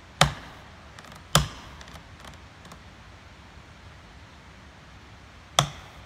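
Three sharp striking blows at the felling cut of a large tree: two about a second apart, then a third about four seconds later.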